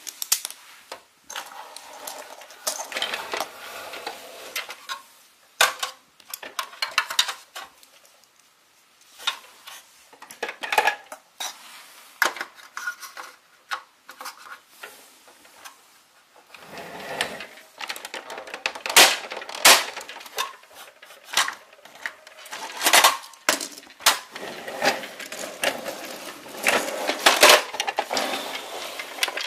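Irregular clattering and clicking of hard objects knocking together, in bursts, with short pauses; the clatter grows busier and louder about halfway through.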